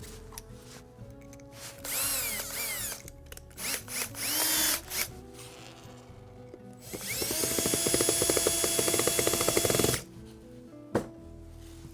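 Power drill driving screws into a rim deadlock's body. Two short spurts, with the motor speed rising and falling, come about two and four seconds in. Then a steady run of about three seconds stops abruptly.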